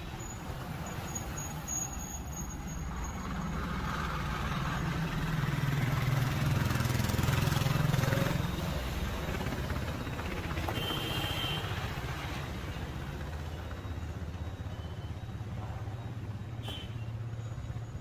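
Street traffic: a motor vehicle's engine rumbling past, swelling to its loudest about seven seconds in and then easing off.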